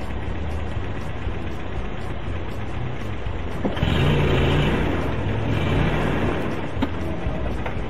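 Steady low rumble of a car idling, with a louder rushing noise from about four to six seconds in and a few light knocks.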